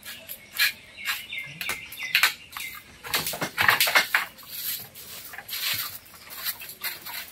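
Dry sticks rustling, crackling and clattering in a run of irregular sharp snaps as they are handled and trodden on, busiest about three to four seconds in.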